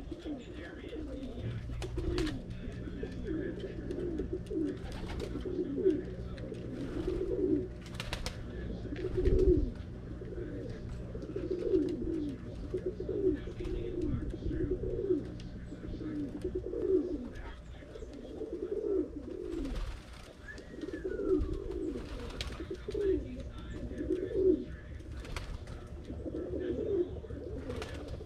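Pigeons cooing over and over, one throaty coo after another. A steady low hum runs under the first half and stops about two-thirds of the way through, with a few clicks and a dull thump along the way.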